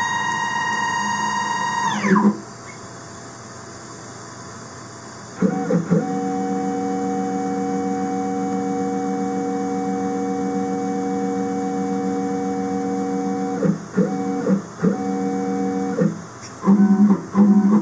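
Lathe axis stepper motors whining as the carriage is jogged. A high whine glides down in pitch and stops about two seconds in. After a pause a lower steady whine runs for about eight seconds, then breaks into a string of short stop-start jogs near the end.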